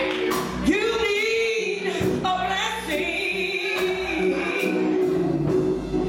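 Gospel song: a woman lead singer sings long, sliding notes into a microphone, leading the choir over live musical accompaniment with a regular beat.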